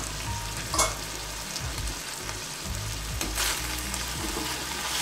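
Boneless chicken pieces sizzling in a black kadai now that their cooking water has dried off, with a sharp clank a little under a second in. From about the middle on, a metal ladle scrapes and stirs through the pieces.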